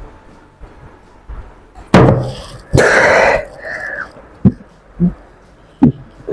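A loud thump on the table about two seconds in, then a harsh gasping, coughing outburst and a few short grunts, a man's reaction to a glass of neat vodka drunk straight down.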